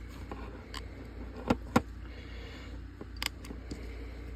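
A few sharp clicks and taps from handling a small plastic vlogging camera while checking its memory card: two close together about a second and a half in, and another a little after three seconds, over a steady low hum.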